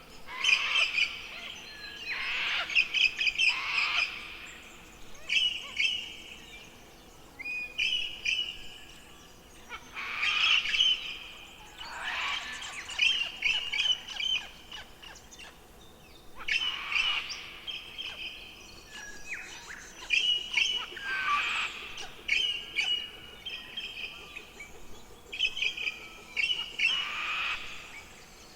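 Forest songbirds singing: short high-pitched phrases of trills and chirps, repeated every one to two seconds with brief pauses between.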